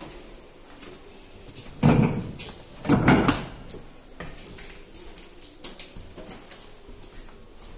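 Two loud thuds about a second apart, followed by a few lighter clicks.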